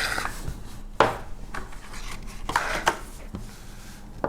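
Small Swiss Army pocket knives being handled: a handful of sharp clicks and knocks, the loudest about a second in, with light rubbing between them.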